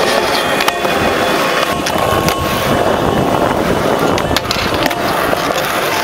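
Skateboard wheels rolling on concrete, a steady rumble broken by several sharp clacks of the board against the ground and a metal flat bar.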